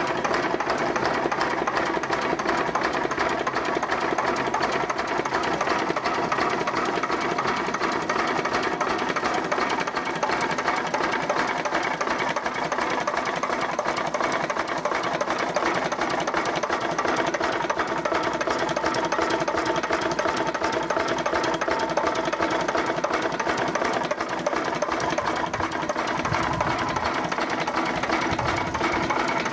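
Slavia D15 15 hp stationary diesel engine running steadily with a fast, even mechanical clatter.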